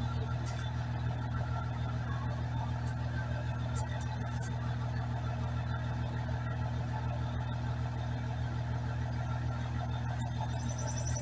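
An engine idling steadily: an even, low hum that does not change.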